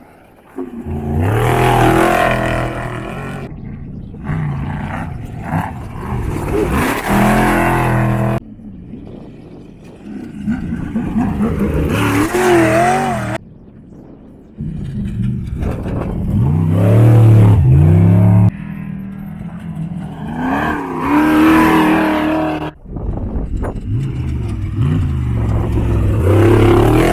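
Off-road desert race vehicles' engines revving and passing as they drive through a turn, pitch rising and falling with the throttle. The sound comes as a string of short clips that cut off abruptly every few seconds.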